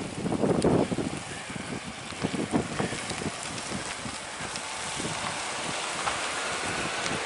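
Wind buffeting the microphone: uneven thumps in the first few seconds, then a steady rushing hiss.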